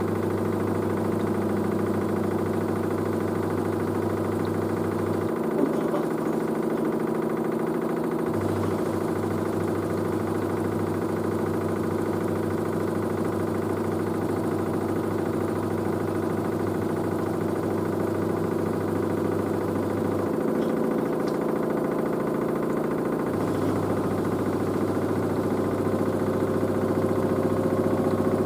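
LG DirectDrive washer dryer running mid-cycle, a steady mechanical hum of drum and motor. A low drone cuts out twice for about three seconds, and near the end a whine rises slowly in pitch as the drum speeds up.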